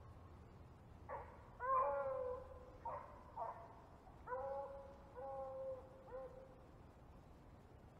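Rabbit beagles baying as they run a rabbit on its scent: about seven calls in the first six seconds, some short and some drawn out, then they fall quiet.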